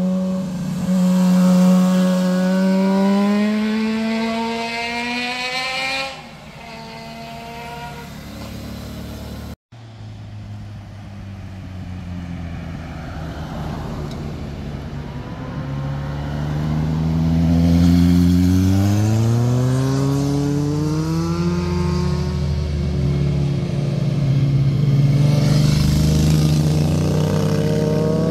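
Motorcycles riding through a hairpin bend, their engines revving harder as they accelerate out of it, with the pitch climbing in several rising sweeps. The sound breaks off abruptly about six seconds in and again near ten seconds, and another loud run of rising engine notes builds from about halfway to the end.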